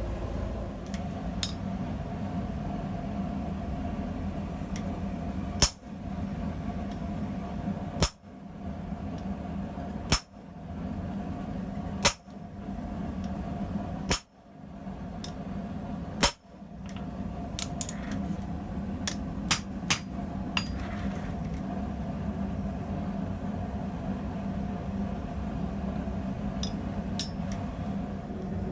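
Hammer striking steel on an anvil while forging a blacksmith tong: six heavy single blows about two seconds apart, then a few lighter taps, over a steady hum.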